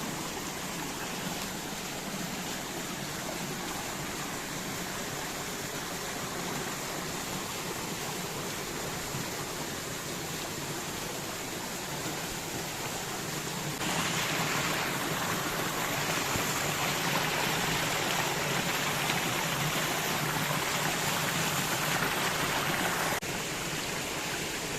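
Stream water rushing steadily. About fourteen seconds in it suddenly gets louder, then drops back about nine seconds later.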